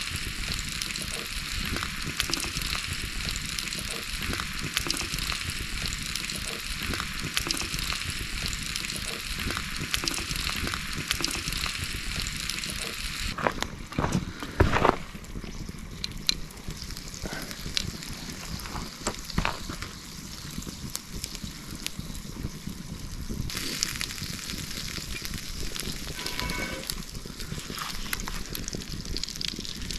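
Steady sizzling hiss of cooking over an open campfire. About halfway through it drops away after a few sharp knocks, then comes back near the end as butter melts and sizzles in hot oil in a cast iron skillet.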